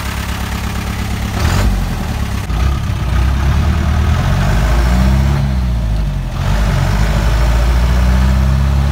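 1991 Mahindra jeep's engine idling, then pulling away and accelerating, heard from inside the cab. The revs rise and fall twice, with a dip for a gear change about six seconds in.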